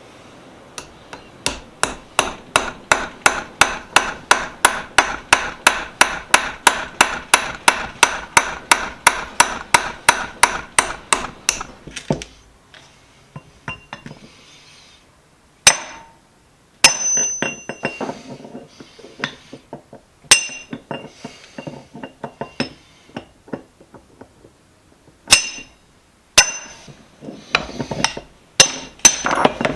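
Hammer blows on the metal of a bench vise being taken apart: a fast, even run of about three to four strikes a second for some eleven seconds, then a few single sharp strikes and clinks that ring briefly.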